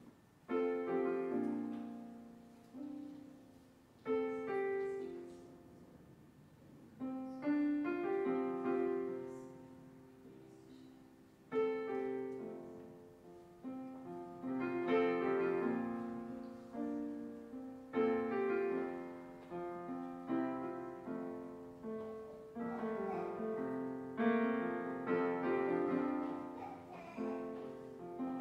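Slow, quiet solo piano music without singing: chords struck and left to ring and fade, a new one every second or two.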